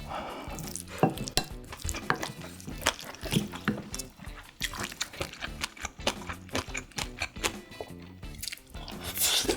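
Many small clicks and clinks of kitchen utensils against dishes or a pot, with some stirring of liquid, over background music.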